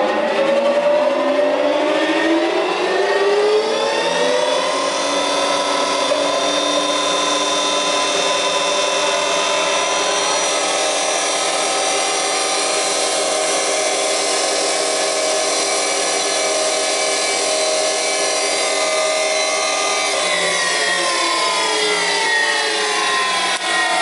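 Bäuerle spindle moulder's spindle and motor spinning up to speed with a rising whine over the first few seconds, then running at a steady whine. About four seconds before the end the whine falls as the spindle slows, and it begins to rise again right at the end as the machine is switched on once more.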